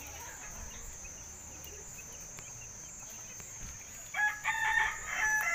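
A domestic fowl calling loudly about four seconds in: a harsh, pitched call broken into a quick run of notes, over a steady high-pitched whine.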